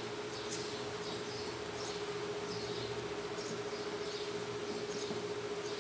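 Felt-tip marker squeaking on a whiteboard while words are written, in short high squeaks about two a second, over a steady hum.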